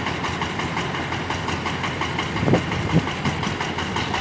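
Excavator's diesel engine running steadily, with two louder low knocks a little past halfway.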